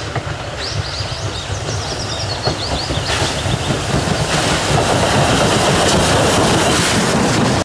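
Steam locomotive hauling a train of coaches along the track, growing louder as it approaches, with a rhythmic clatter in the second half.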